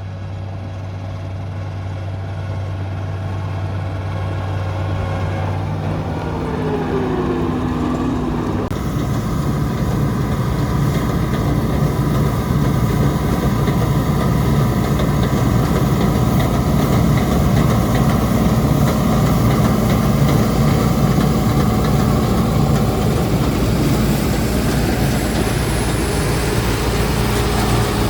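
John Deere 4400 combine running steadily. About nine seconds in, the sound suddenly becomes louder and fuller with a rushing machine noise, which then runs on evenly.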